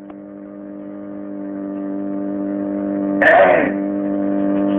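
A steady background drone of several held tones, like a sustained keyboard chord, fading in gradually. A brief burst of voice cuts in about three seconds in.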